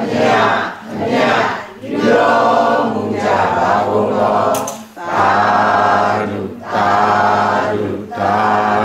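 A group of voices chanting together in unison, in drawn-out phrases of about a second each with short breaks between: a Buddhist congregation's devotional chant.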